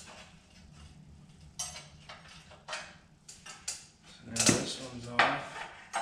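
Hand tools and loose steel parts clinking and scraping against the frame of a John Deere 175 riding mower being taken apart, with scattered short clanks. The two loudest, ringing clanks come about four and a half and five and a quarter seconds in.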